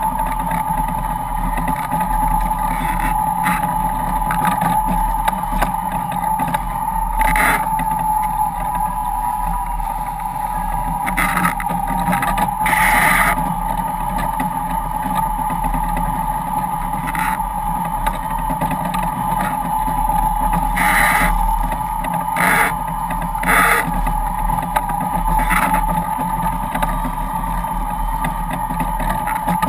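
Foiling sailboat at speed: a steady high hum from the hydrofoils over rushing water and wind, with several short splashes of spray.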